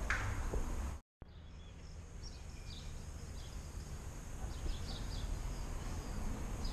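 Outdoor ambience: a steady low background rumble with small birds chirping in a few short clusters. The sound drops out completely for a moment about a second in.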